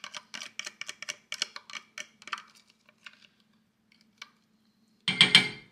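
A small glass bowl of garlic butter being tapped and scraped to empty it into a pan. Quick sharp clicks, about five a second, thin out after about two seconds. A louder clatter lasting about half a second comes near the end.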